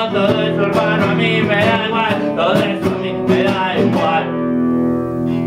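Nylon-string classical guitar strummed in quick strokes, ending about four seconds in on a final chord that is left to ring and fade.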